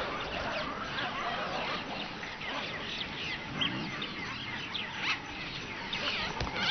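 Wild animal ambience of many short chirps and whistling calls, mostly birds, over a steady hiss, with a lower honking call in the middle.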